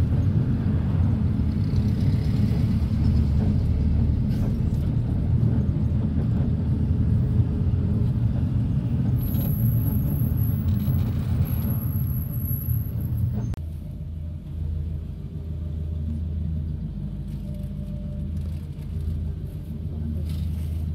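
Low engine and road rumble heard inside a moving minibus. About two-thirds of the way through it drops to a quieter steady hum as the bus slows and stands with its engine idling.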